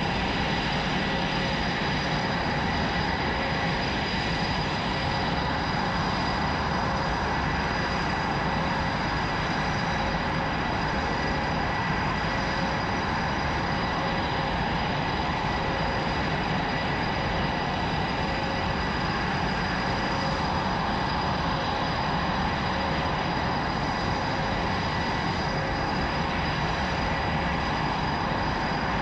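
Aircraft engine running steadily: an even rush with a constant high whine that neither rises nor falls.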